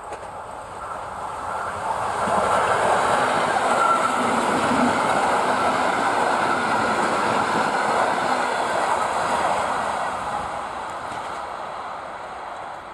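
An EN57 electric multiple unit passing at speed. The noise of its wheels on the rails builds over about two seconds, holds steady while the cars go by, and fades near the end.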